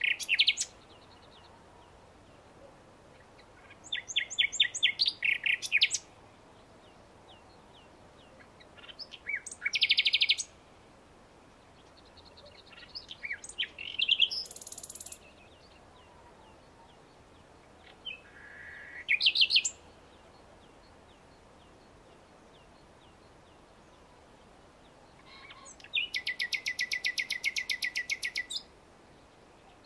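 Common nightingale singing: five short phrases of rapid repeated notes, separated by pauses of a few seconds. The longest is a fast, even run of repeated notes near the end.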